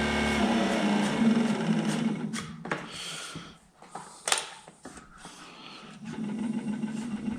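Electric trolling motor running on test with a steady hum that fades out about two seconds in. A few sharp clicks and knocks follow, and the hum starts up again about six seconds in.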